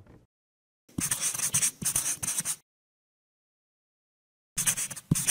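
Scratching in two bursts: one of about a second and a half starting about a second in, and another starting near the end, with a few soft knocks mixed in.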